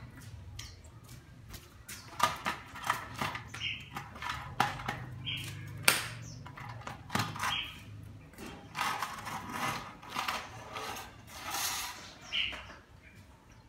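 A red-whiskered bulbul hopping and fluttering about its wooden cage: a fast, irregular run of sharp clicks and rattles from its feet and wings on the perch and bars, thickest in the middle and fading near the end.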